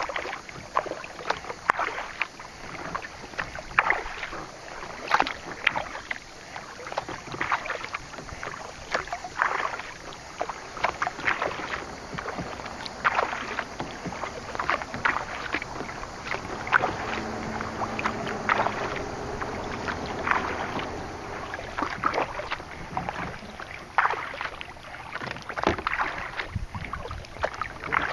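Kayak paddling: the paddle blades dipping and splashing into the water about once a second at an uneven pace, over a steady wash of water.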